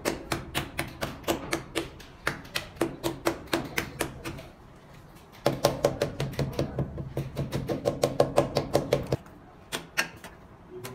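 A mallet tapping rapidly on a freshly laid ceramic wall tile, about five taps a second, bedding it into the mortar. The tapping comes in two runs with a pause of about a second between them, and a steady low hum sounds under the second, louder run.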